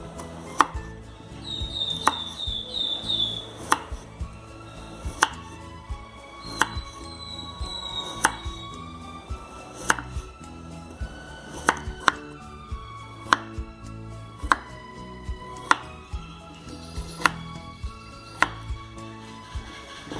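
Kitchen knife slicing peeled carrots on a wooden cutting board: each cut ends in a sharp knock of the blade on the board, about one cut every second or a little slower. Background music plays underneath.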